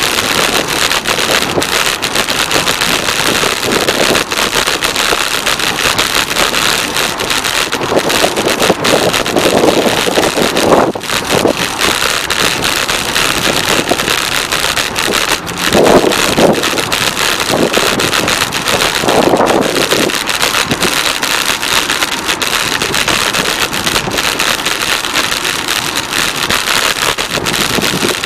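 Wind rushing over the microphone of a moving bicycle, mixed with steady traffic from the highway alongside, swelling a few times partway through.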